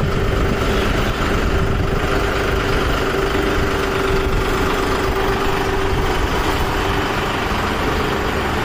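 John Deere 5310 tractor's three-cylinder diesel engine running steadily at low revs as the tractor creeps up steel loading ramps onto a truck bed.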